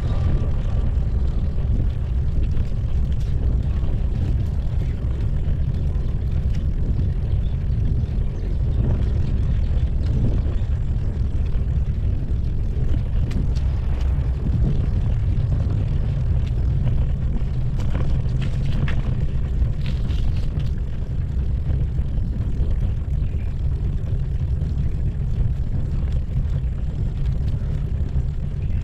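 Steady low rumble of a moving bicycle ride over interlocking concrete paving blocks: wind on the microphone mixed with tyre noise from the block joints. There are a few light rattles and clicks along the way.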